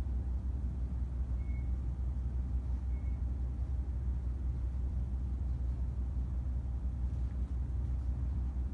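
Steady low rumble of background noise with no distinct event, just a constant hum in the room or recording.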